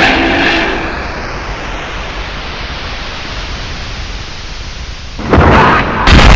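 Dubbed-in battle sound effects: a steady rushing, rumbling noise, then a sudden loud blast about five seconds in that gets louder again just before the end.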